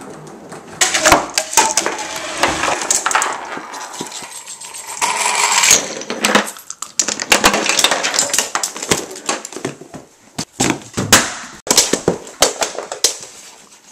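Homemade Rube Goldberg machine running through its chain reaction: a skateboard rolling on a table, toy blocks toppling and toy cars running down a plastic track, and a wooden stick knocking a book off a shelf. It comes through as a fast string of knocks and clatters with short stretches of rolling between them.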